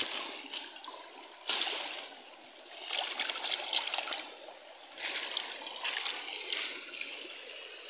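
Shallow stream water running over rocks, with several surges of splashing and sloshing as a woven basket of small fish is swished in the water to rinse the catch.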